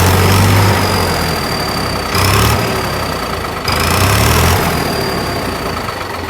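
Tractor engine revved in short blips with an aftermarket turbo-whistle fitted, giving a thin high whistle that jumps up with each rev and slowly sinks in pitch as the engine falls back. There are three blips, about a second and a half apart.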